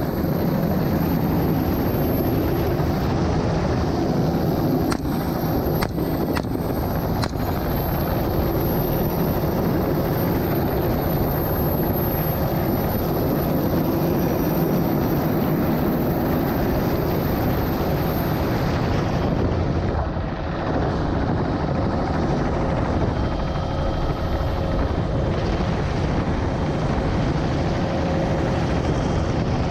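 Helicopter engine and rotor noise heard from on board in low flight, a steady loud drone.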